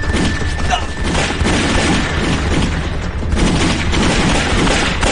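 Gunfight sound effects from a TV drama's battle scene: a dense, unbroken run of rifle and pistol shots mixed with heavy booms.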